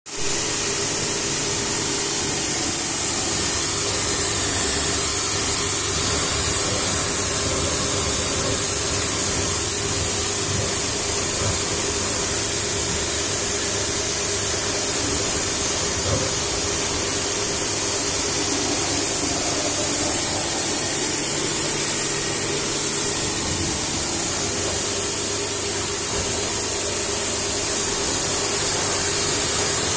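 BTALI BT 2200 HPW electric pressure washer running steadily, its induction motor and pump humming under the hiss of the high-pressure water jet spraying against a motorcycle.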